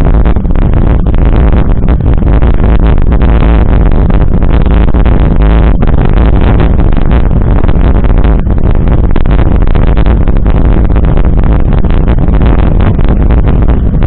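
Loud, steady wind buffeting and rumble on a bike-mounted action camera's microphone, with mountain-bike tyres rolling over a gravel road.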